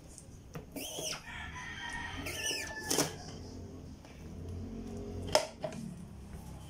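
A rooster crowing, its call rising and falling about a second in and again around two and a half seconds in. A sharp knock comes about five seconds in.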